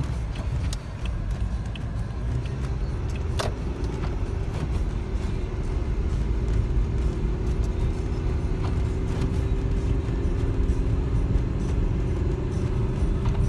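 A vehicle engine running with a steady low rumble, a faint steady hum joining after about two seconds. There is a single sharp knock a few seconds in.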